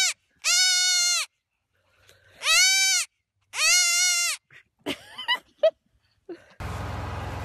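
A young goat kid bleating: three long, loud, high-pitched bleats, each about three-quarters of a second, with a short gap between them. A steady background hiss comes in near the end.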